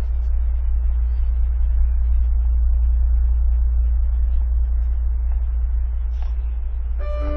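Double basses holding a loud, steady, very low drone. Bowed double bass notes enter over it near the end.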